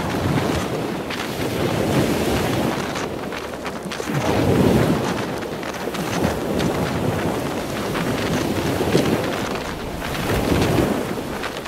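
Strong storm wind buffeting the camera microphone in repeated gusts, over the rush of heavy surf washing up the beach, with rain and spray spattering the camera.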